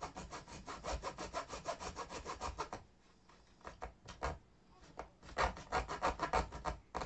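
A fine razor saw cutting through model railway rail in quick, even back-and-forth strokes, stopping and starting again twice in the second half.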